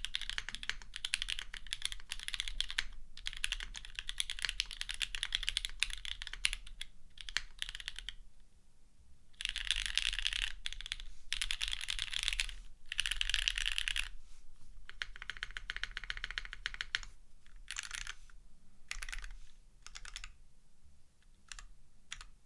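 Typing on a mechanical keyboard (JJW Derivative) with lubed and filmed SP Star Meteor White V2 linear switches in a half aluminium plate and GMK keycaps. Steady typing gives way after a brief pause to a fast run of key presses, then from about two-thirds of the way in to separate presses of the larger modifier keys.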